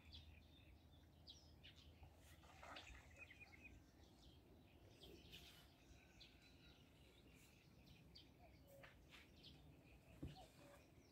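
Near silence with faint, scattered bird chirps over a low steady background hum, and a single soft thump near the end.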